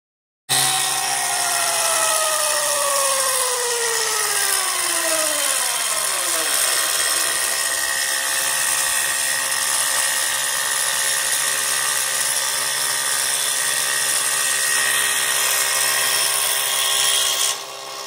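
Milling machine's end mill cutting an aluminium block under coolant: a steady, loud machining noise with the spindle's whine. Over the first several seconds a few tones glide downward in pitch, and the sound drops away near the end.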